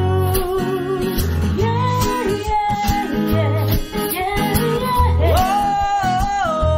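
Background music: an acoustic-guitar pop song with a singer's voice over a steady bass beat.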